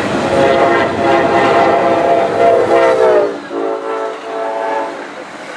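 Passing train's locomotive horn sounding a chord of several notes over the rumble of the train; about three seconds in the chord drops in pitch as the locomotive goes by, and the rumble falls away with it, the horn then fading.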